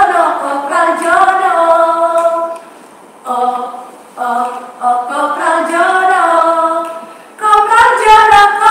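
Women's voices singing a cappella, without instruments, in long held and gliding notes, broken by a few short pauses.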